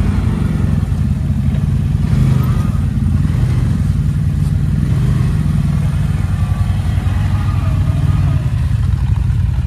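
CFMoto ZForce side-by-side's engine running steadily at low revs as the machine crawls over rough, washed-out dirt.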